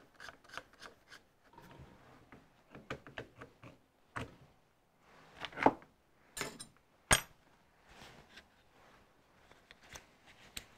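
Scattered light clicks, taps and rubbing of small metal hand tools and Allen keys being handled and set down on a workbench mat, with a sharper click about seven seconds in.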